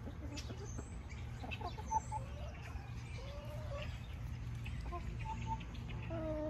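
Hens clucking with short calls and a longer wavering call about three seconds in, over a steady low rumble. A sharp knock about two seconds in.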